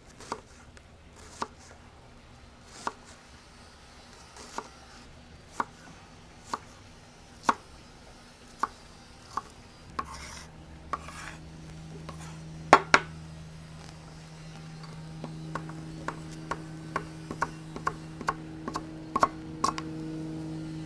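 Chef's knife chopping on an end-grain wooden butcher block, cutting up a red onion and then cilantro. Sharp knocks come about once a second at first and quicken to several a second near the end.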